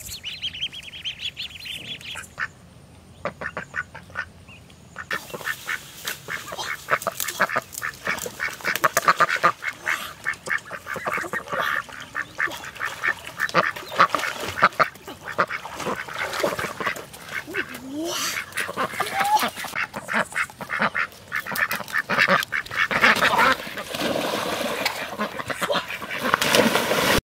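Domestic ducks quacking, with many short calls in quick succession. The calls are faint at first and become dense and louder from about five seconds in.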